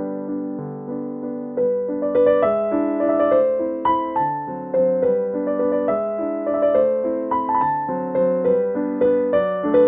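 Background piano music, notes struck and fading one after another, getting louder and busier about two seconds in.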